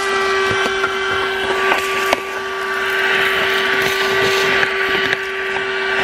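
Handheld 12-volt car vacuum cleaner running with a steady motor whine, with crackling and ticking as dry porridge oats are sucked up through its nozzle.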